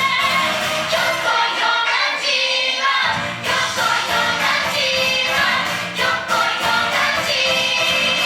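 Song playing over the sound system: singing voices with instrumental accompaniment, the bass dropping out briefly about two seconds in.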